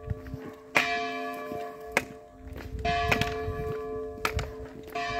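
Church bell striking nine o'clock: slow single strokes about two seconds apart, three of them here, each one ringing on with a steady hum under the next.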